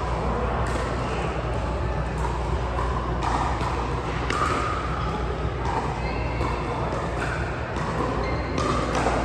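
Background chatter of distant voices with scattered sharp knocks, about one a second, over a steady low hum.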